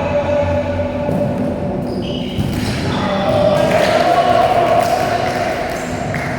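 Indoor volleyball game in an echoing gym hall: the ball being struck and bouncing, with players' voices calling over it.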